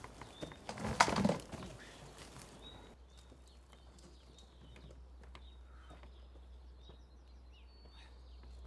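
Footsteps and knocks on the forest floor, with one heavier thump about a second in; from about three seconds on it is quieter, with only faint clicks. Small birds chirp briefly throughout.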